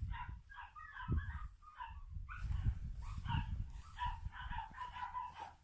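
Chickens clucking: a steady run of short, choppy calls, with low rumbling underneath.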